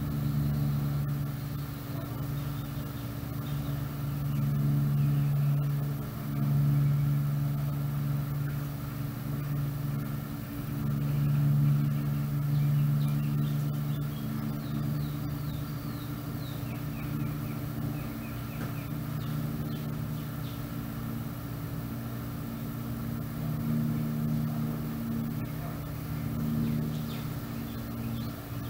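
Steady low mechanical hum, like a motor running, that swells and fades several times, with a few faint high chirps about halfway through.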